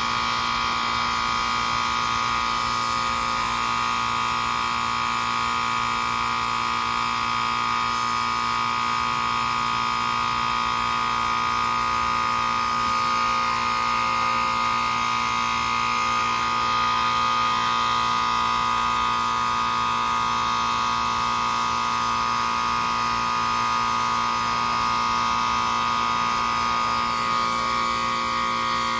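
1980s York Stellar heat pump running in its defrost cycle: a steady compressor drone with a high whine and a hiss of refrigerant and steam. The tone shifts slightly near the end.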